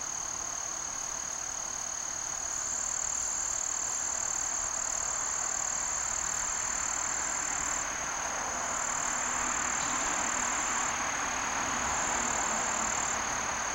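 Steady high-pitched insect trill, the sound of crickets or similar insects calling, over a soft rushing background noise that grows a little louder a few seconds in.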